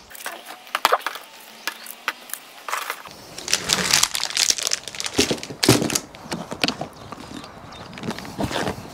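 Plastic plant pots and seed trays being handled: irregular rustling, crinkling and light clicks, busier from about three and a half seconds in.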